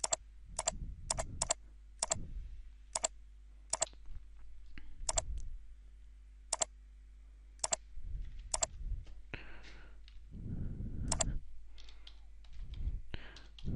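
Computer mouse clicks: about a dozen single sharp clicks at uneven intervals, most of them in the first half, over a faint steady low hum.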